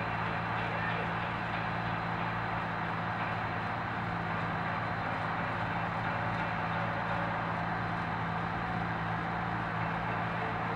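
Engine machinery running steadily at a constant speed: a low even hum under a broad mechanical noise.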